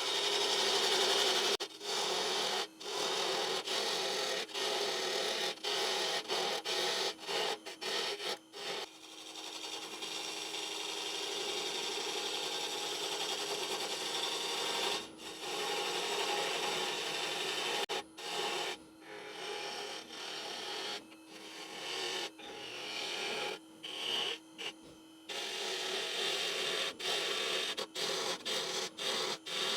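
A turning gouge cutting a dry, hard oak bowl blank spinning on a wood lathe: a continuous scraping, shaving noise that stops and restarts many times as the tool is lifted off and put back to the wood, with a faint steady hum underneath through the middle.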